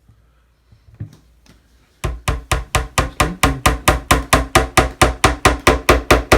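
Small tack hammer tapping a pin into the wooden capping of a model ship: a few light taps, then from about two seconds in a fast, even run of sharp ringing strikes, about six a second.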